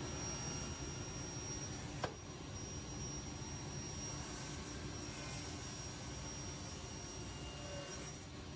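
Table saw running steadily while a walnut board is fed through the blade to rip a strip. A single sharp click sounds about two seconds in.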